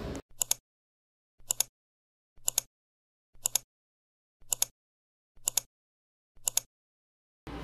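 Camera shutter sound effect, a sharp double click, repeated seven times about once a second with dead silence between.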